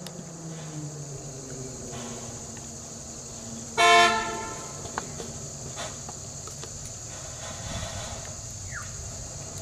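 A single short vehicle horn blast about four seconds in, over the steady low running of a nearby vehicle engine.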